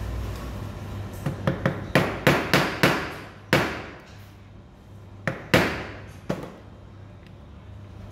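Mallet striking a metal hand punch held upright on leather over a stone slab: a run of quick light taps building into harder blows, each with a short ring, then a pause and three more strikes.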